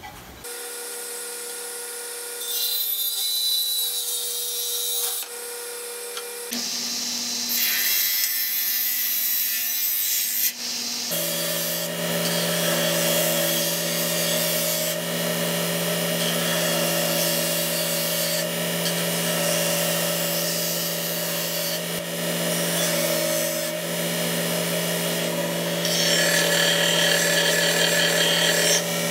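Electric combination belt-and-disc sander running while a laminated wood blank is pressed against it to square up its end: a steady motor hum under the rasping of the abrasive on the wood. The sound changes abruptly a few times.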